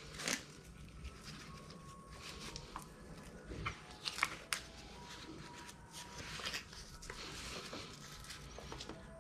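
Handling noise from a jigsaw and its plastic hose adapter as a hook-and-loop strap is pressed tight around them: a few sharp clicks and knocks, most of them around the middle, and patches of rustling.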